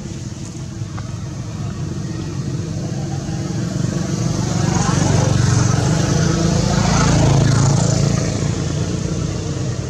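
A motor vehicle's engine passing by: it grows louder over several seconds, is loudest a little past the middle, then fades.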